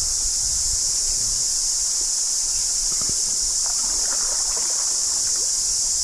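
Steady, high-pitched chorus of cicadas, with a faint low rumble underneath.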